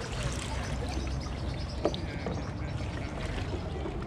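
Water sloshing in a plastic bucket as a gloved hand moves small live baitfish about in it, with a few light knocks, over a steady low rumble.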